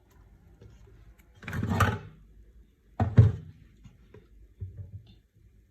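Kitchen handling sounds: a short scraping rattle, then a sharp knock a little over a second later, with a few faint knocks after it.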